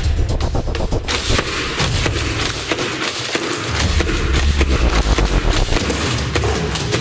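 Rapid run of shots from Nerf foam-dart blasters being fired in quick succession, sounding like machine-gun fire, over background music.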